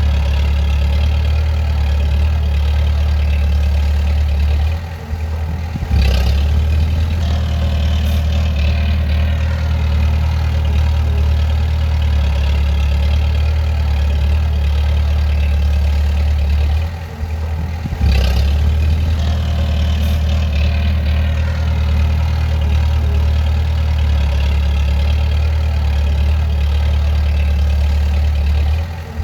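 Bulldozer's diesel engine running steadily with a deep hum. It eases off briefly about five seconds in and again about seventeen seconds in, then picks back up sharply each time.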